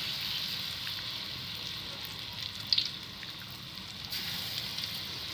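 Corn fritter batter frying in hot oil in a wok: a steady sizzling hiss as spoonfuls of batter go into the oil, with two brief clicks about halfway through.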